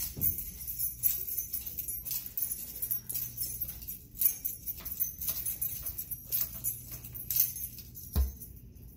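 Keys jingling and rattling in an uneven walking rhythm, with soft footsteps on carpet. A short low thump near the end.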